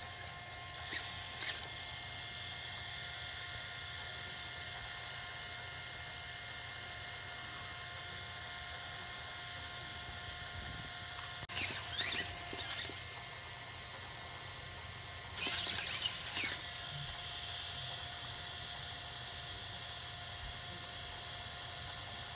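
Sony Aibo ERS-111 robot dog's joint motors and gears whirring in short, high-pitched, squeaky bursts as it moves: once about a second in, again around halfway, and once more a few seconds later.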